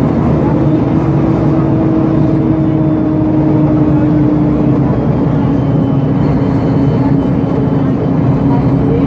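Diesel engine of a Mercedes-Benz O-500UA articulated bus (Caio Mondego HA body) running steadily under way. Its drone sinks slowly in pitch.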